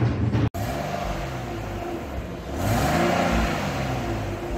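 Hyundai Tucson's 2.7-litre V6 running through an open exhaust pipe, revved up and let fall back twice, the second rev louder.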